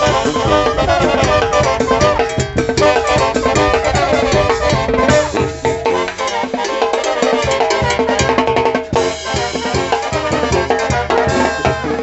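A live Sinaloan brass banda playing a cumbia, the snare, cymbals and bass drum driving a steady beat under tuba and wind instruments.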